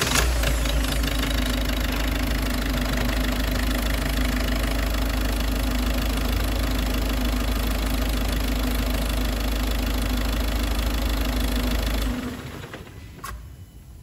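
Ford Focus 1.6 TDCi four-cylinder turbodiesel idling steadily on its first run after an oil and filter change, then switched off about twelve seconds in and running down within a second. A light click follows shortly after.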